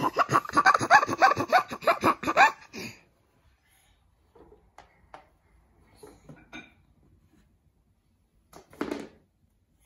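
A rapid, loud string of short high-pitched vocal calls, about six a second, lasting nearly three seconds. After that a few scattered light knocks of toys being handled.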